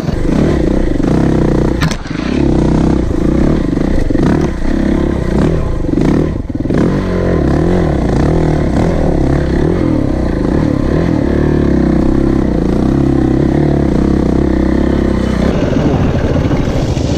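Single-cylinder four-stroke dirt bike engine being ridden hard over a rocky trail, its pitch rising and falling again and again with the throttle. There is a sharp knock about two seconds in and a brief drop in revs around six seconds, and it settles into steadier running near the end.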